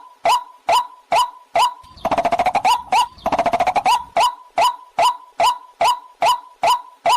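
Recorded waterhen calls playing in a loop as a lure call: short notes about twice a second, each a quick note settling onto a steady tone. About two seconds in, a fast rattling chatter breaks in twice, each for about a second, before the regular calls resume.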